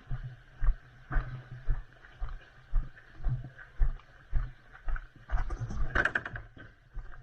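Footsteps at a steady walking pace, about two a second, picked up as dull thuds through a worn camera, with rustling of clothing and gear. A louder, longer rustle about five to six seconds in, like pushing through brush.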